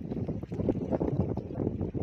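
Small sea waves lapping and splashing in quick, irregular strokes, with wind buffeting the microphone.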